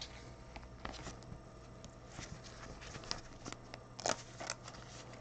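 Faint rustling and light clicks of trading cards and a clear plastic card sleeve being handled, with a slightly louder crinkle about four seconds in.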